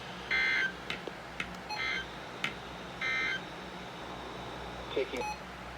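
Emergency Alert System end-of-message signal: three short bursts of digital data tones about a second apart, marking the end of the alert. A few faint clicks fall between them over a low steady hum.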